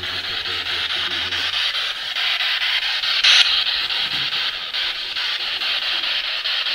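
Spirit box sweeping rapidly through radio stations: a steady hiss of static chopped into short pulses several times a second, with snatches of broadcast voice and a brief louder burst of static about three seconds in.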